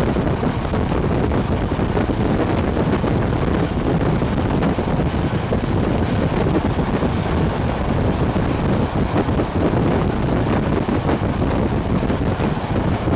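Steady noise of a moving train heard from an open carriage window, mostly wind buffeting the microphone over the running rumble of the train.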